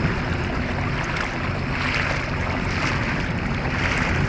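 Small boat under way on calm water: a steady low motor hum beneath the wash of water along the hull and wind buffeting the microphone.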